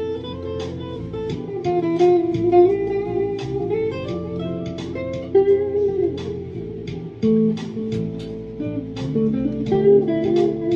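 Squier junior Stratocaster-style electric guitar played lead: single picked notes in a loose, unhurried line, some of them bent or wavering in pitch.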